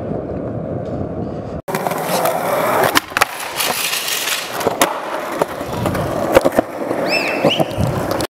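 Skateboard wheels rolling on concrete with a low rumble. After an abrupt cut, a skateboard grinds along a concrete ledge, with several sharp clacks of the board and wheels hitting the ground and a few short high squeaks near the end.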